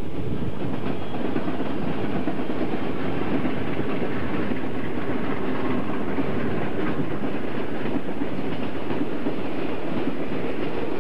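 Union Pacific freight train passing close by: the diesel locomotives go by first, then covered hopper cars roll past in a steady rumble with wheels clacking over the rail.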